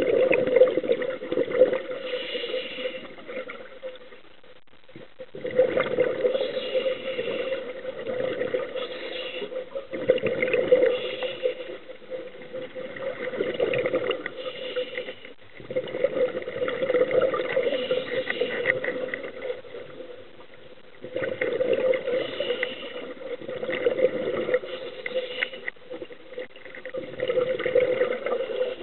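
Scuba regulator breathing heard underwater: a gurgling rush of exhaled bubbles lasting a few seconds, about every five seconds, with quieter inhalations between.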